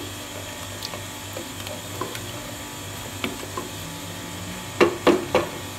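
Wooden spatula stirring and scraping thick spinach in an aluminium pot, with scattered small clicks and about three louder knocks against the pot near the end, over a steady low hum.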